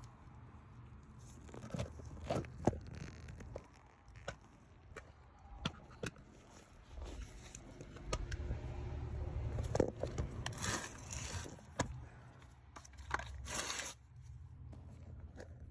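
Clicks, knocks and scraping of hard parts being handled and fitted while the shift actuator is put back onto a top-load washer's drive, with a few rustling stretches.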